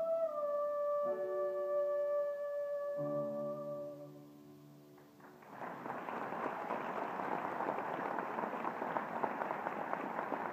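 Choir of young voices holding a long final note over accompaniment chords that change twice, dying away about four seconds in. About a second and a half later, audience applause starts and carries on.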